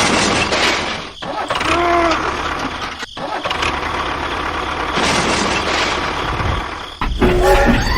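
Vehicle engine running, with a short pitched sound about two seconds in and a deeper low rumble building from about five seconds in.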